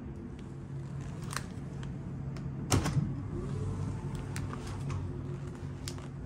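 A steady low hum with a few sharp clicks scattered through it and a louder knock about three seconds in.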